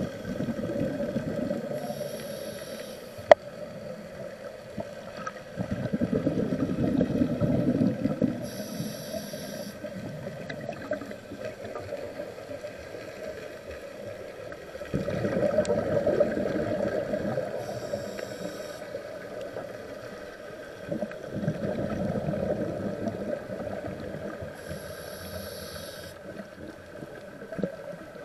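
Scuba breathing heard underwater through the camera housing: regulator inhalations as short hisses every several seconds, and exhaled bubbles as longer low, gurgling swells. One sharp click about three seconds in.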